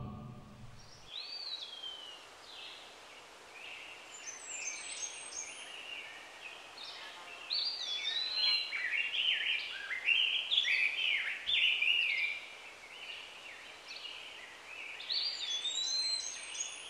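Songbirds singing outdoors: a run of varied, quick whistled and chirping phrases that sweep up and down in pitch. The birdsong is busiest in the middle and lighter near the start and end.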